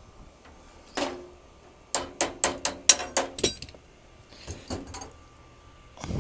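Metal clinking of a pipe wrench and brass flare fitting as the piston is worked out of the metering device: a single click, then a quick run of about seven sharp metallic taps with a short ring, a few softer knocks, and a dull thud near the end.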